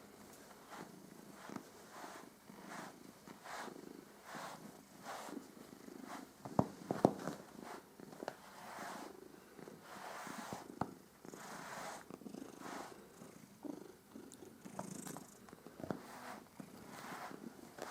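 Domestic cat purring, pulsing steadily with each in-and-out breath. A couple of sharp clicks come about seven seconds in.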